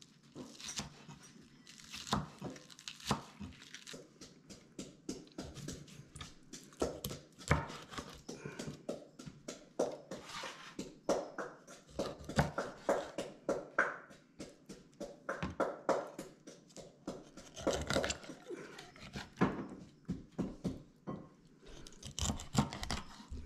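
Large kitchen knife on a wooden cutting board: irregular knocks and clicks of the blade, first slicing green onions, then cutting a whole whitefish into chunks, with some crunching as the blade goes through the fish.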